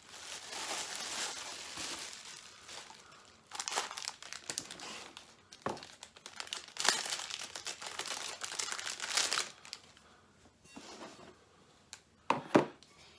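Thin plastic bag crinkling and rustling in bursts as a cast iron skillet is pulled out of it and the bag is handled, dying down after about ten seconds. Two sharp knocks near the end.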